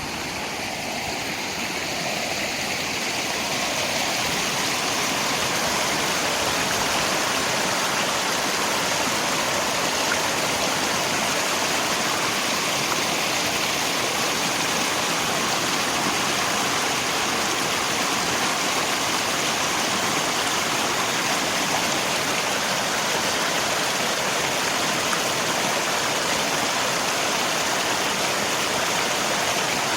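Rain and a flowing river together, a steady, dense rushing hiss of water. It swells over the first few seconds, then holds even.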